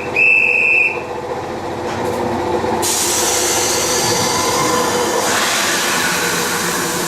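Alps Express train running, a steady rumble and hiss that brightens about three seconds in and again about two seconds later. A short high-pitched tone sounds in the first second.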